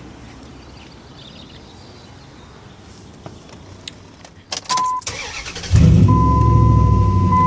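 2003 Dodge Ram 1500 pickup being started: a few clicks and a short high tone, then the engine catches about six seconds in and runs steadily at idle. A steady high tone sounds over the running engine.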